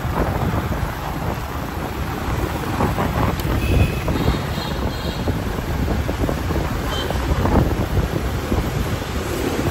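Wind buffeting the microphone over the noise of street traffic. Faint brief high tones come through about four seconds in.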